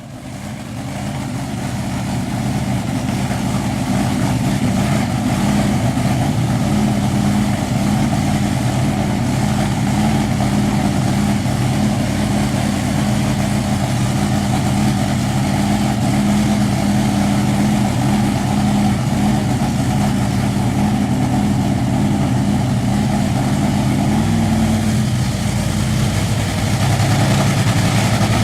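Top Fuel drag-racing engine, a supercharged nitromethane-burning V8, running at a steady idle. Near the end its pitch drops slightly and it gets a little louder.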